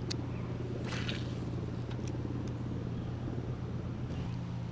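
An engine running steadily with a low, even hum. There is a brief swish about a second in.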